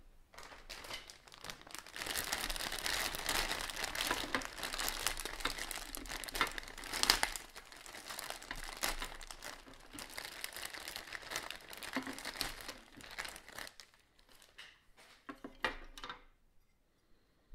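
Clear plastic parts bag crinkling as it is handled and opened. Near the end, a few short clicks as the hard plastic parts tree is handled.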